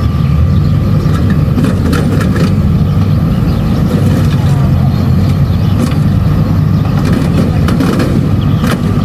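Kubota DC-70 Plus combine harvester's diesel engine running steadily under load while harvesting rice. A few sharp rattles or knocks sound about two seconds in and again near the end.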